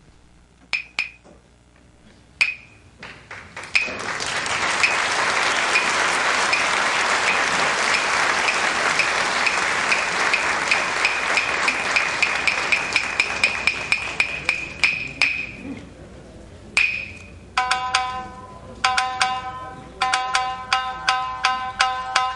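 Wooden hyoshigi clappers struck a few single times, then in a long, fast run of strokes over audience applause, signalling the curtain opening, and ending with two separate strokes. Then a shamisen starts playing the opening of a rōkyoku piece, its plucked notes ringing.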